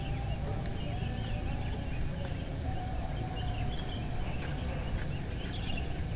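Dawn ambience of many small birds chirping over a steady low rumble, with a faint drawn-out wavering tone in the middle range.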